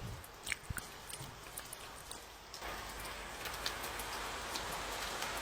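A few scattered sharp clicks and taps, then about two and a half seconds in a steady rain sound starts and keeps on.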